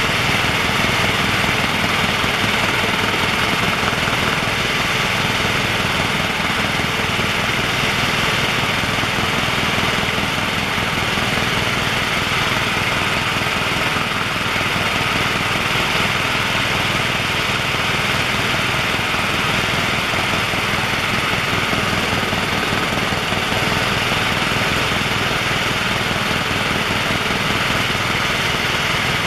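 Steady, loud cabin noise of a HeliJet Sikorsky S-76 twin-turbine helicopter in cruise flight: an even rush of turbine and rotor noise with a faint high whine, unchanging throughout.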